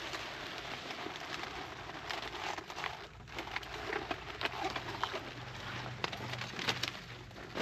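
Leafy crop plants rustling and crackling as they are handled and picked, with many irregular sharp snaps of leaves and stems.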